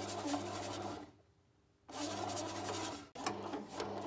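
Bread machine kneading dough: the motor hums steadily while the paddle turns the dough in the pan with a rubbing, scraping noise. The sound breaks off for under a second about a second in, then carries on.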